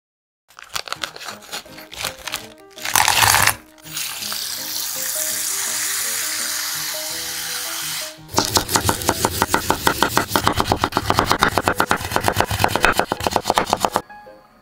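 Kitchen food-preparation sounds over soft background music: a scatter of small ticks and a brief loud burst, a steady hiss lasting about four seconds, then a fast, even run of sharp strokes.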